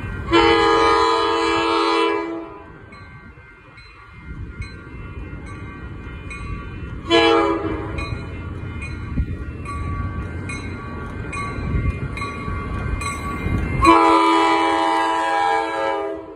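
Coaster commuter train sounding its horn as it approaches a grade crossing: a long blast, a short one, then a long one, each a multi-note chord. Under the horn, crossing bells ding steadily and the rumble of the train grows louder toward the end.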